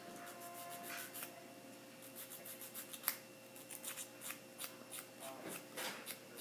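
Two-sided nail buffer block rubbing across a fingernail in quick short strokes, about three a second, roughing up the natural nail so the glue-on nail will hold.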